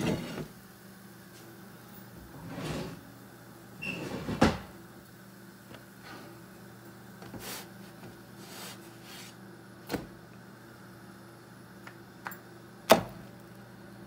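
Kitchen handling sounds as roti are turned, lifted and laid on a cast-iron tawa: a few short scrapes and scattered sharp knocks, the loudest near the end, over a steady low hum.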